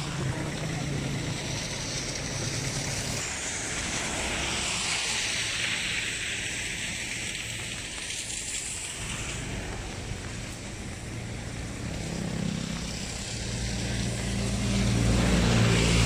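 Steady hiss of rain and wind, with a motor vehicle's engine going by on the wet road at the start and another rising to the loudest point near the end.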